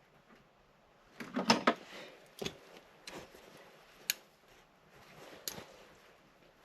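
Light clicks and clatter of things being handled by hand: a short cluster of knocks about a second in, then single sharp clicks every second or so.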